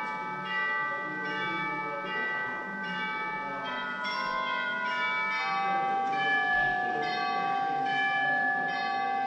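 Church bells chiming a slow run of notes at different pitches, each struck note ringing on under the next.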